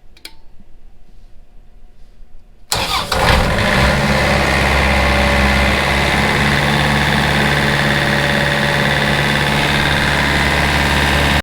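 An engine starts up suddenly about three seconds in and then runs loud and steady.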